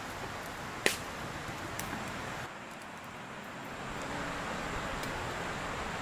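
Steak sizzling on a wire grill over charcoal, with a sharp click of metal tongs against the grate about a second in. After a drop in level about halfway through, a steady outdoor hiss takes over.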